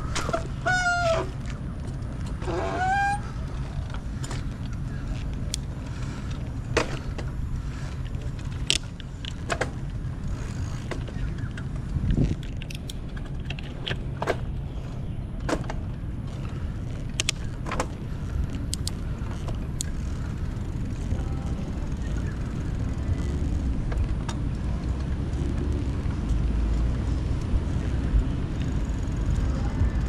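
Outdoor ambience: a steady low rumble with scattered sharp clicks. Two short honk-like calls with a wavering, gliding pitch come within the first three seconds.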